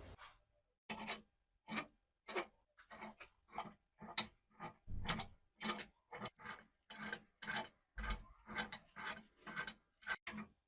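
A hand file scraping in repeated short strokes, about two a second, with brief pauses between them, during the restoration of a rusty antique hand drill.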